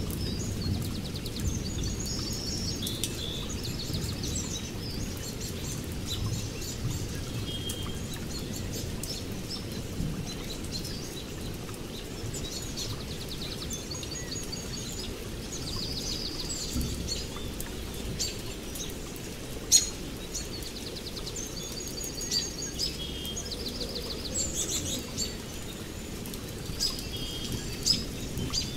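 Songbirds chirping and trilling over a steady low rumble of rain and distant thunder, with a sharp tap about twenty seconds in.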